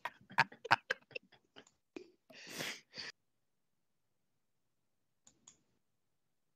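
A quick run of sharp clicks over the phone line, then a short breathy hiss about two and a half seconds in, then two faint clicks.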